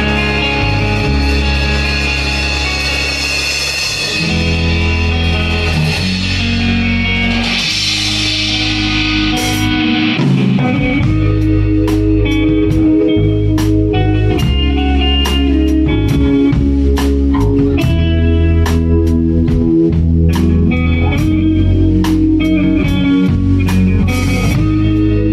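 Live band playing: electric guitar and bass with a wash of cymbals at first, then the drum kit comes in about ten seconds in with a steady, even beat.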